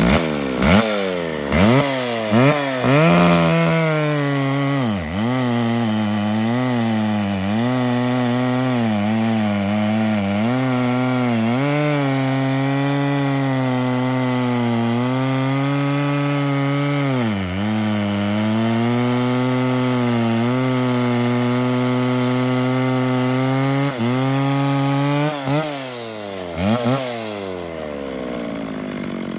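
McCulloch Pro Mac 650 two-stroke chainsaw running with an ungoverned carburettor. It is revved in a few quick blips, then held at full throttle for about twenty seconds while cutting through a large log, sagging briefly under load. Near the end it is blipped twice more and drops back to idle.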